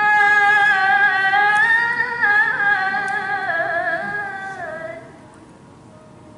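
A girl reciting the Qur'an in melodic tilawah style into a microphone, holding one long ornamented phrase that wavers in pitch, then falls and ends about five seconds in.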